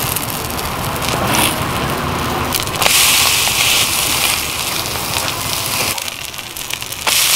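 Oil sizzling on a flat griddle under napa cabbage and scallion pancakes (baechu-jeon). The sizzle grows louder about three seconds in, as a metal spatula presses down on a browned pancake.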